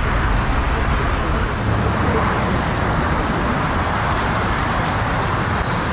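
Boeing 757 landing and rolling out on the runway: steady jet engine noise from its Rolls-Royce RB211 engines just after touchdown.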